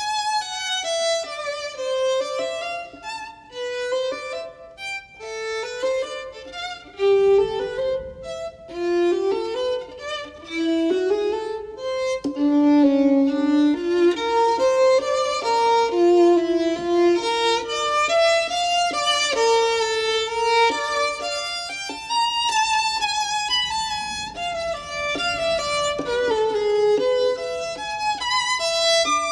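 Background music: a solo violin playing a melody, a single line of notes stepping up and down.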